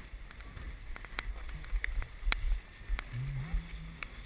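Low rumble of wind and handling noise on an action camera's microphone, with scattered sharp clicks and knocks.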